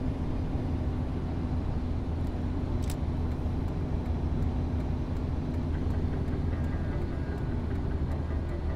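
Steady low rumble of a car's engine and tyres heard from inside the cabin at highway speed, with a sharp click about three seconds in.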